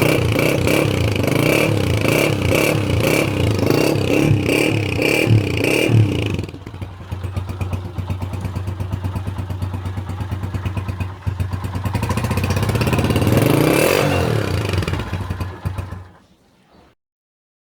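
Honda CG125 single-cylinder four-stroke motorcycle engine running through a KYH aftermarket silencer, revved in quick repeated blips for about six seconds, then dropping to idle. Near the end it revs up once slowly, falls back, and the sound stops.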